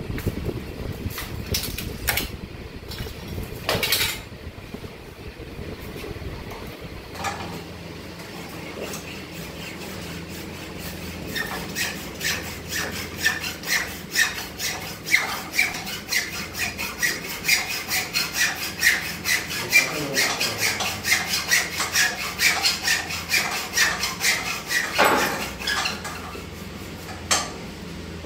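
Hacksaw cutting through a single-core 300 mm² copper power cable with quick, even back-and-forth rasping strokes, about two a second, starting a little over a third of the way in.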